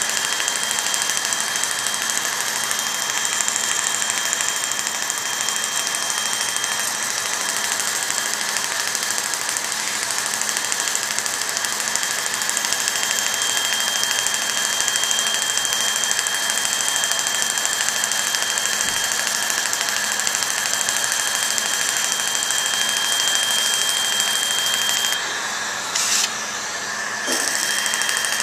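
Surgical smoke evacuator running steadily with a rushing suction hiss, drawing off the CO2 laser plume. A continuous high tone over it drops out about seven seconds in and again for a couple of seconds near the end.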